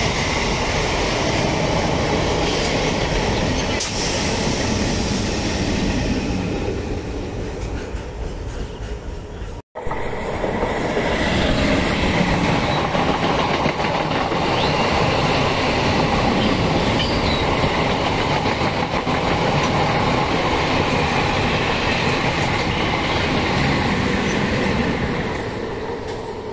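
Indian local train coaches of MEMU type running past at close range: steady, loud wheel and rail noise. The sound cuts out for a split second about ten seconds in.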